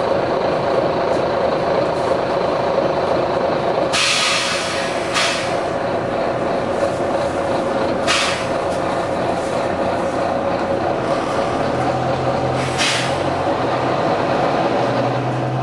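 Volvo B9TL bus's air system hissing in short bursts over the steady running of the bus: a longer hiss about four seconds in, then three brief hisses spread across the rest. A low engine note grows stronger near the end.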